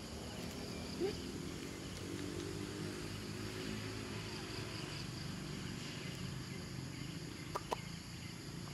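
Outdoor ambience: insects chirring steadily under a faint low murmur of distant voices, with a sharp click about a second in and two more close together near the end.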